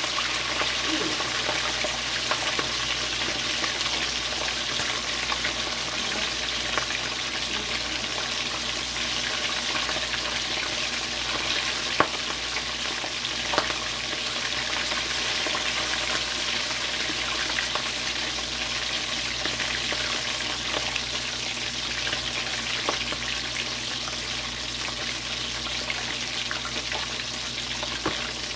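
Chicken leg quarters deep-frying in very hot oil: a steady sizzle with a few sharp pops and spatters, the loudest about halfway through.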